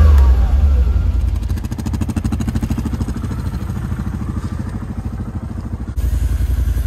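Engine of a tracked ATV idling with an even pulsing beat. It is louder for the first second or so, eases down, then steps up again near the end.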